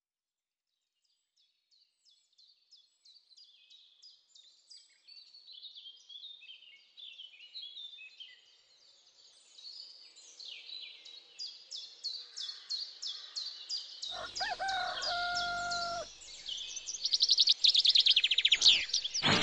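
Small birds chirping in quick high notes, fading in from silence and growing steadily louder, with a rooster crowing once, a call of about two seconds, around two-thirds of the way through.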